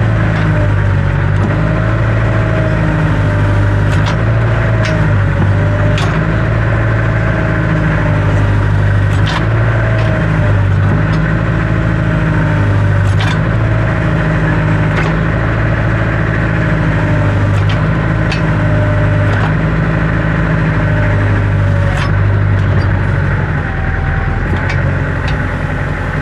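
Diesel tractor engine running at a low, steady idle, its pitch wavering slightly, with scattered sharp clicks and knocks.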